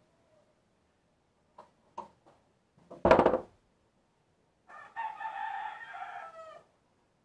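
A loud knock about three seconds in, after a couple of light clicks, then a rooster crows once, a call of about two seconds that falls in pitch at the end.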